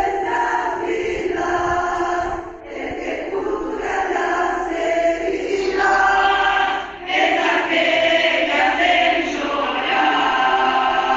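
A group of voices singing a Christian praise song together, choir-like, phrase after phrase with short breaks about two and a half and seven seconds in. A thin steady high whine runs under the first half and stops about halfway.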